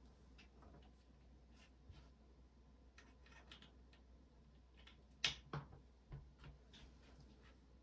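A few sparse keystrokes on a Yunzii AL71 aluminium-cased mechanical keyboard with Durock Burgundy switches and DCX keycaps. They are faint at first, with a handful of clearer clacks about five to six and a half seconds in.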